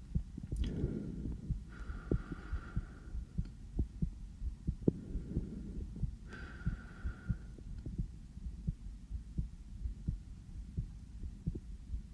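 A man's own heartbeat picked up close, a steady run of short low thumps beating fast. A soft hiss comes in twice, about two and about six seconds in.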